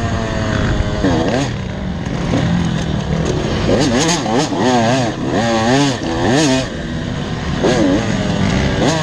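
KTM dirt bike engine revving under a rider's throttle, its pitch climbing and dropping again and again. The throttle goes on and off quickest about four to six seconds in.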